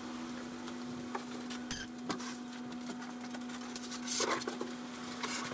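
A foam boat hull being handled and turned over on its stands: scattered light clicks and knocks, with a louder rubbing scrape about four seconds in. A steady low hum runs underneath.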